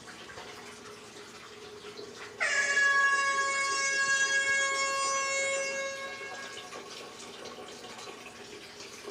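Air horn blast: a single loud, held, buzzy tone that starts abruptly, sags slightly in pitch at its onset, and fades out after about four seconds.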